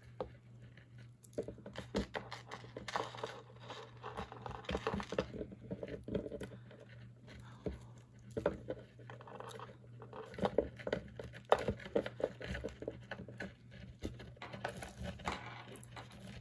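Handling of tangled wire necklaces and other jewelry: irregular rustling and crinkling with many small clicks as the pieces are pulled apart, over a faint steady hum.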